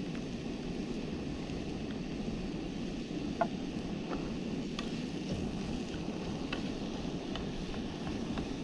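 Steady roar of a camping gas stove burner, with occasional light crackles of onion and pepper frying in a small wok.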